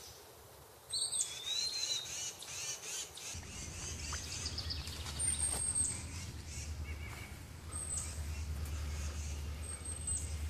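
Songbirds singing in the trees: repeated high chirps and trills, with a few brief, very high thin notes later on. A low steady rumble comes in about three seconds in.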